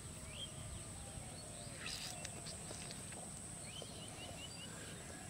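Outdoor animal ambience: birds calling, with a quick run of five high chirps about four seconds in, over many short repeated calls and a steady high-pitched hum.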